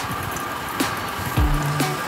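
Background music with a deep bass beat.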